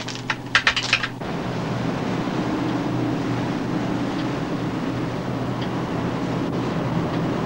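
Steady low drone of a patrol boat's engines under way, with wind and sea noise across the open bridge. It follows a few short sharp sounds in the first second.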